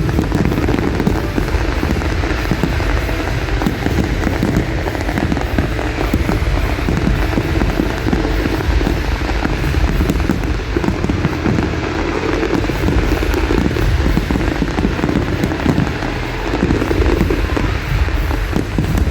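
Fireworks display: a dense, continuous run of bangs and crackling, with show music playing underneath.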